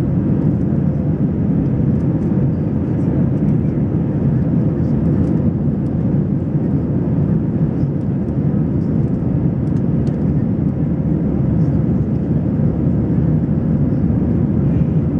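Steady drone of engine and airflow noise inside an Airbus A320's passenger cabin in flight, a deep even rush with a faint steady hum on top.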